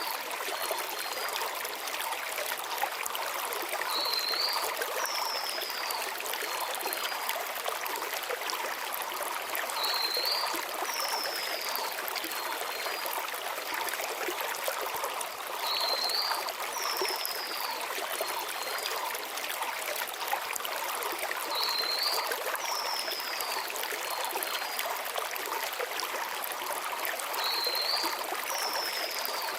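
Steady rushing and burbling of a shallow mountain stream flowing over stones. A small songbird repeats the same short phrase about every six seconds: a quick high note, then a falling whistle.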